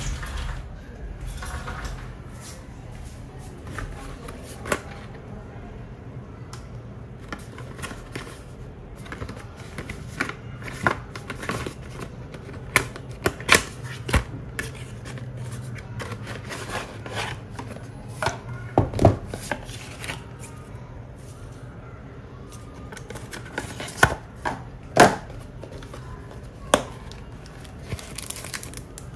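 Cardboard sunglasses box and its case being handled: irregular taps, clicks and rustles as the box flaps are opened and the case is taken out and opened, with a low steady hum underneath.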